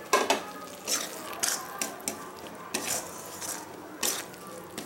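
Steel spatula scraping and clinking against a metal kadai while stirring a thick spice paste being fried on low heat, in a run of irregular strokes with the loudest right at the start.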